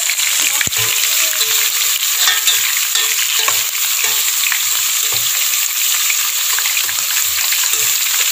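Chopped aromatics sizzling in hot oil in a metal pot, stirred with a spatula that scrapes across the pot about twice a second.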